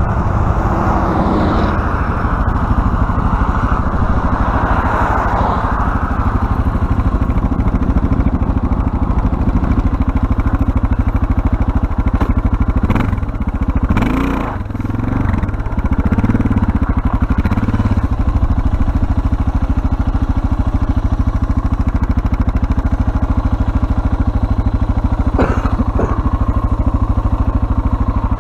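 Suzuki DR650's single-cylinder engine running steadily at low revs, with a brief clatter about halfway through.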